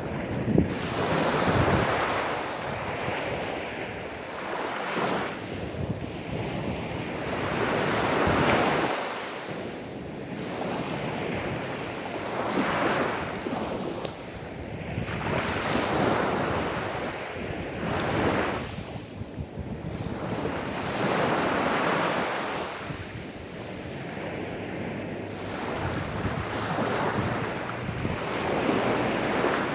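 Small, gentle sea waves washing onto a sandy beach, each one swelling into a rush of surf and then fading as it draws back, about every three to four seconds.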